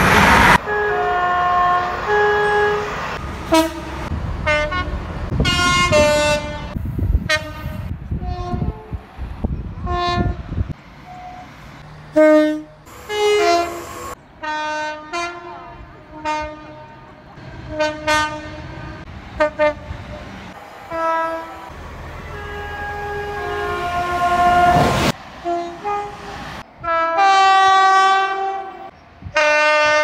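A rapid succession of British two-tone train horns from several different trains, a dozen or more short blasts, mostly high-low pairs, each clip cut off sharply into the next. The rumble of a passing train runs under the first ten seconds or so.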